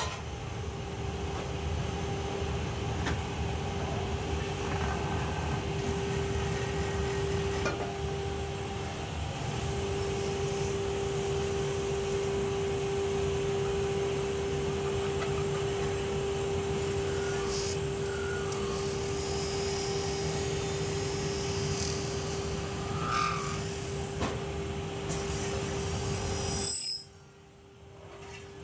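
Lathe running with a steady hum while an aluminium pot body is turned on it, the hand-held cutting tool scraping and shaving metal chips off the spinning pot. The sound drops away sharply about two seconds before the end.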